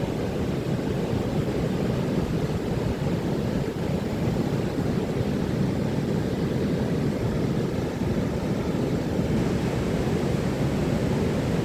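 Ocean surf on a beach: a steady, loud low rumble of breaking waves with no single crash standing out.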